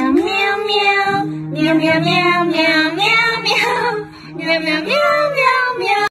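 Music: a high, childlike singing voice carrying a melody over a low sustained accompaniment, cutting off suddenly at the end.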